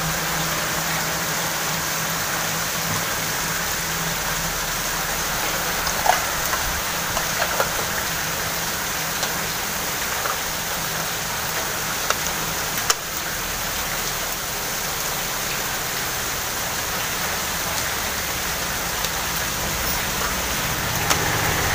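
Steady hiss throughout, with a few light clicks and knocks of a plastic LED light housing being handled and pressed together.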